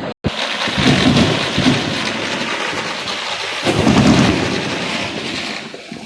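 Fireworks going off: a dense, continuous crackle with deep booms about a second in and again near four seconds, easing off toward the end.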